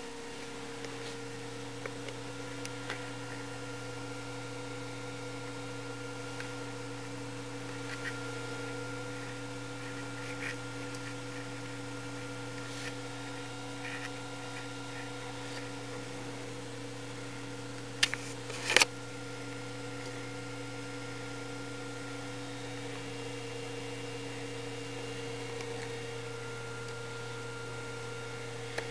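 A steady low electrical hum, with scattered faint clicks and a few sharp clicks about eighteen seconds in.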